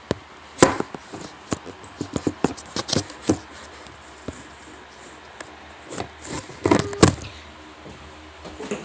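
Objects being handled by hand: a string of irregular clicks, knocks and light scrapes, clustered in the first few seconds and again about two-thirds of the way through.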